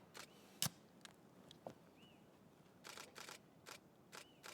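Quiet ambience with faint scattered clicks and knocks, one sharper about two-thirds of a second in and a small cluster about three seconds in. A short high chirp repeats about every two seconds.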